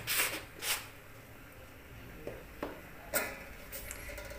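A few light clicks and knocks, the loudest about three seconds in, with soft rustling near the start over a low steady background: small handling noises.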